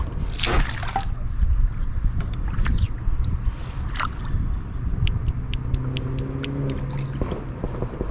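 A hooked bass being fought and landed beside a fishing boat: water splashes about half a second in and again around 4 s, then a run of sharp clicks and a brief low hum, over a steady low rumble.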